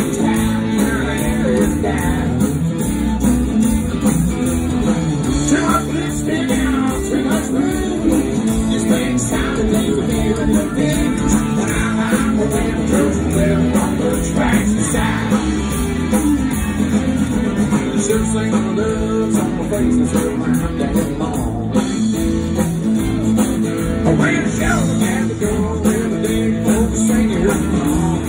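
Country band playing live on stage: strummed acoustic guitar and electric guitar in a full band mix.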